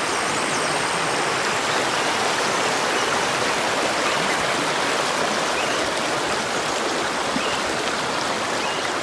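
Shallow, rocky river running fast over stones: a steady rush of flowing water.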